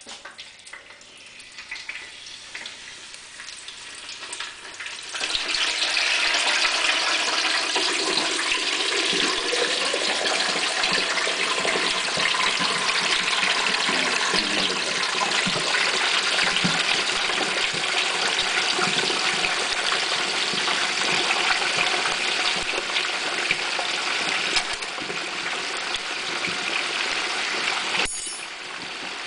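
Hot oil in an electric turkey fryer sizzling and bubbling as a whole turkey is lowered into it. The sizzle builds over the first five seconds to a loud, steady hiss and eases off a little near the end.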